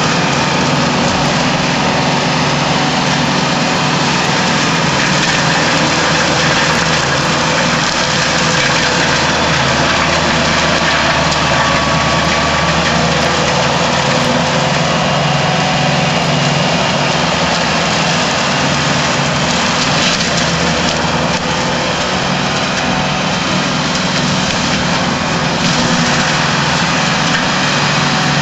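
Tractor-mounted forestry mulcher working under load, its rotor of swinging forged-steel hammers shredding brush and small wood on the ground, over the tractor's steady engine.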